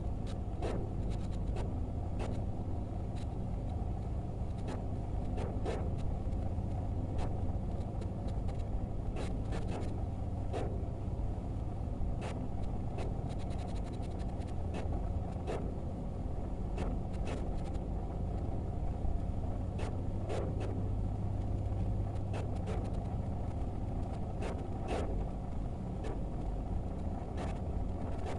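Brush strokes scraping on canvas, short and irregular, about once or twice a second, over a steady low hum.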